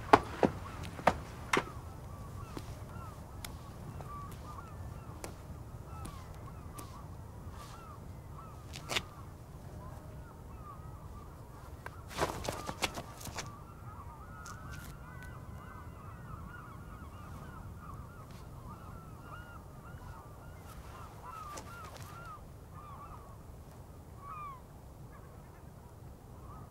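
Birds calling in a steady stream of short calls over a low rumble of outdoor background noise. A few sharp knocks come in the first couple of seconds, one about nine seconds in, and a short cluster a few seconds later.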